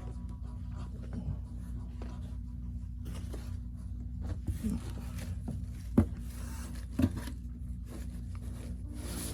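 Rustling and scraping of jerseys and their plastic packaging being handled, with a few sharp clicks, the loudest about six and seven seconds in, over a steady low hum.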